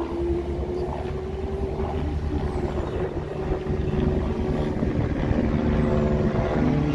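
Engine of an approaching racing superbike at high revs, a steady engine note growing louder as it nears.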